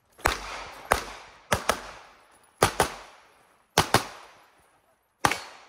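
Pistol firing about nine shots in roughly five seconds, mostly in quick pairs a fraction of a second apart, typical of engaging each target twice in a practical-shooting stage; each shot has a short ringing tail.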